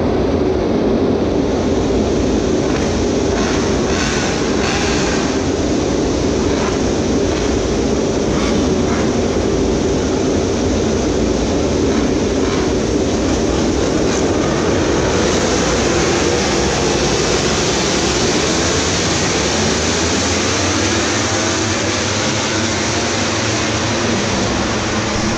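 A pack of MotoGP racing motorcycles running together on the straight: a loud, continuous blend of many 1000 cc four-cylinder racing engines. Engine notes glide up and down in the second half as the bikes pass.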